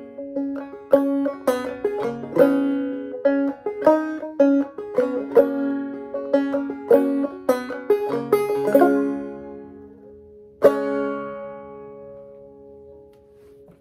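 Five-string banjo played clawhammer style in gCGCD tuning: a quick plucked melody mixed with brushed strums, which settles on a chord about nine seconds in. One last strummed chord near eleven seconds rings out and slowly fades, closing the piece.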